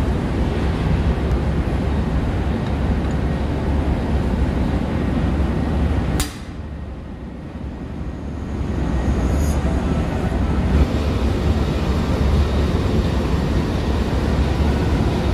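Steady, loud machinery drone of a ship's engine room, heaviest in the low rumble. A sharp click comes about six seconds in; the drone then drops for a couple of seconds before building back up.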